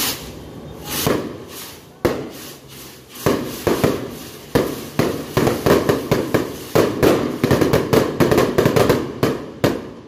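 Sky rockets (kwitis) going off: a couple of hissing whooshes at first. Then, from about two seconds in, a rapid string of sharp cracks and pops that grows denser and stops just before the end.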